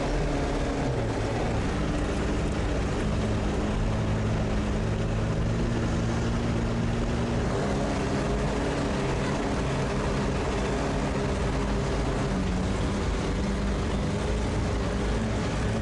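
Sherp all-terrain vehicle's diesel engine running steadily under load, heard from inside the cabin. Its note steps down about a second in and shifts again around the middle.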